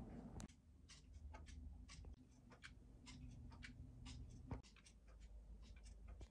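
Faint ticking of several wall clocks out of step with one another, giving an uneven patter of sharp ticks, about four or five a second. One louder knock comes about four and a half seconds in.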